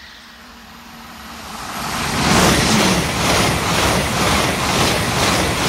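Hitachi Class 801 Azuma electric train approaching and passing close by at speed. A rush of wheel and rail noise builds over about two seconds, then stays loud and steady with a regular beat about twice a second as the carriages go by.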